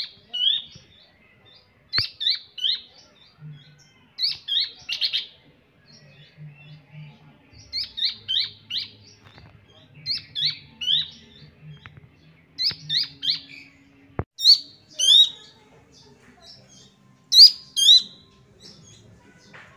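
Juvenile Horsfield's babbler (pelanduk semak) calling: quick groups of two to four sharp, high whistled notes, repeated every second or two.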